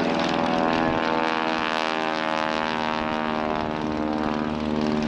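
Stinson Reliant's nine-cylinder Lycoming R-680 radial engine and propeller droning steadily as the aircraft flies its display.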